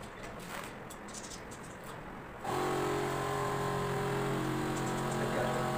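Faint scratching as a tile is marked by hand, then, about two and a half seconds in, a steady engine-like hum starts suddenly and holds at one even pitch.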